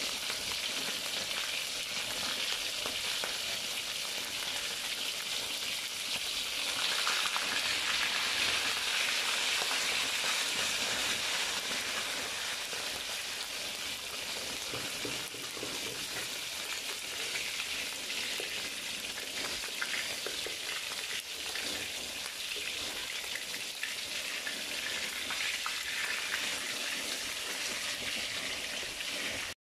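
Whole small fish shallow-frying in hot oil in a metal wok: a steady sizzle, louder for several seconds starting about seven seconds in.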